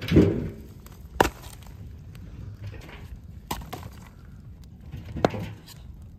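Wood fire burning in a pit, crackling with a few sharp pops spaced a second or two apart; a heavier, louder knock comes right at the start.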